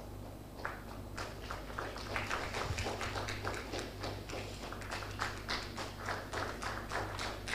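Scattered applause from a small audience, a handful of people clapping. It starts just under a second in and grows thicker.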